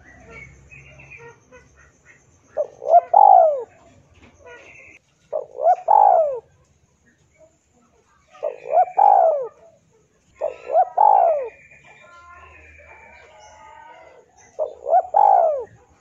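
Spotted dove cooing: five phrases, one roughly every three seconds. Each phrase is a short note running into a longer arched coo.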